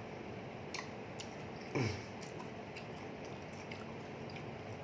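People chewing and eating, with a few small wet mouth clicks and a short voiced murmur about two seconds in.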